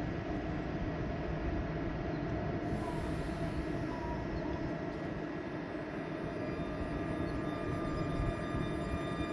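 Siemens Vectron electric locomotive (class EU160) hauling a passenger train through a station, a steady rumble of the train on the track with faint steady tones above it.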